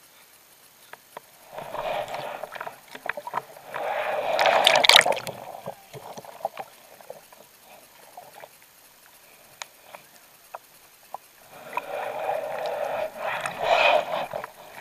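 Sea water splashing and sloshing close by as a surfboard is paddled by hand. It comes in two spells of about three seconds each: one starting about two seconds in and loudest near five seconds, the other near the end.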